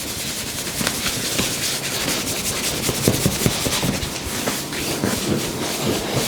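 Hands rubbing briskly over skin in a massage, a rapid, continuous run of dry friction strokes.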